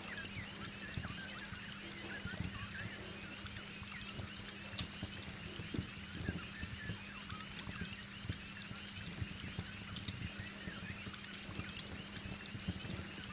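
Heavy rain pouring steadily, with scattered sharp crackles from a wood fire and a low steady hum underneath.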